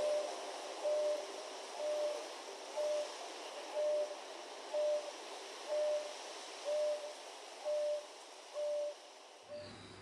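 A repeated hooting call: one short, even-pitched hoot about every second, ten in a row, over a steady high hiss, fading out near the end.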